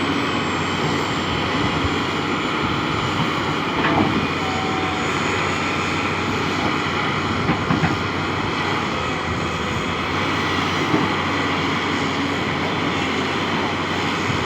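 Excavator's diesel engine running steadily, with a few short knocks about four seconds in and again near eight seconds.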